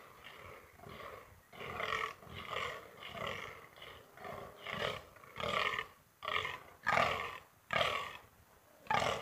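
A rutting fallow buck croaking: a run of about a dozen short, deep groans, a little more than one a second, louder in the second half. It is the buck's rut call for dominance.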